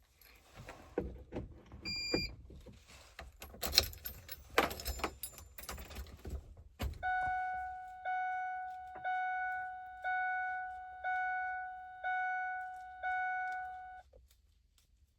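Keys jangling and clicking as a key is worked in a truck's ignition, then the truck's dashboard warning chime sounding seven times, about once a second, each tone fading before the next.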